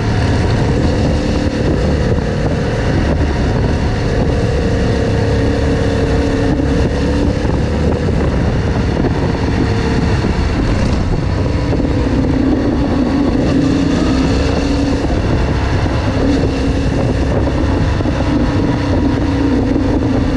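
Motorcycle engine running under way, with wind buffeting the microphone; the engine note drops about halfway through and holds lower.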